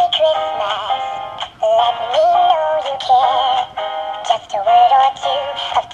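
Gemmy animated dancing Christmas squirrel toy singing a Christmas song over its backing music, in sung phrases with short breaks between them.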